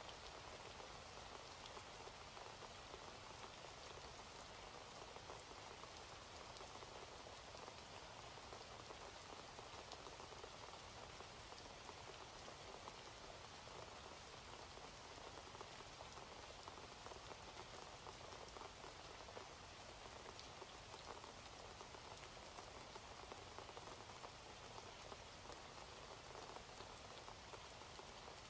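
Faint, steady rain: a dense, even patter of drops that does not change.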